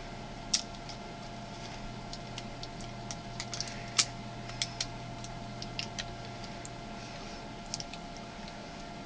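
Batteries and tape being handled: irregular light clicks and taps, the loudest about four seconds in, over a steady low hum.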